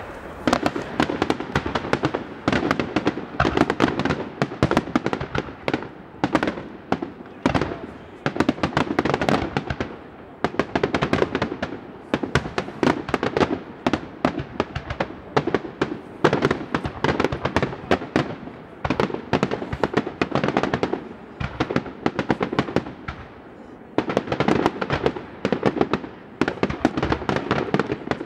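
Daytime aerial fireworks shells bursting in a rapid barrage: many sharp bangs and crackles every second, with a few short lulls.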